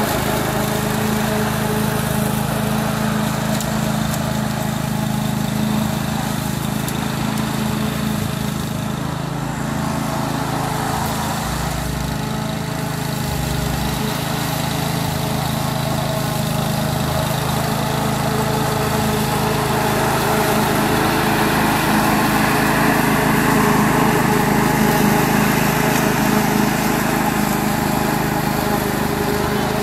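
Duricut 820 walk-behind lawn mower's 159cc petrol engine running steadily under load while it cuts grass, getting a little louder in the second half.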